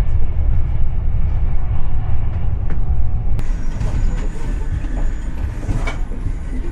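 Passenger train running, heard from inside the carriage: a loud, steady low rumble with a few faint clicks. About halfway through, a higher hiss joins it.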